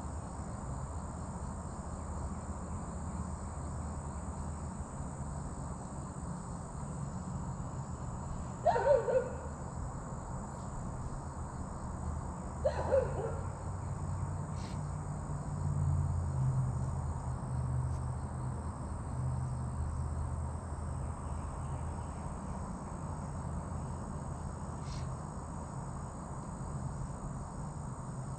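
Steady high-pitched chorus of crickets and other insects, with a low steady hum underneath. Two short louder calls, each falling in pitch, come about 9 and 13 seconds in.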